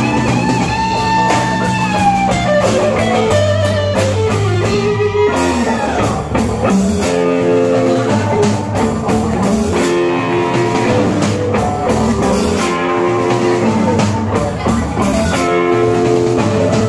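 Live blues-rock band playing: an electric guitar takes the lead with bent notes for the first few seconds, then chords, over drums.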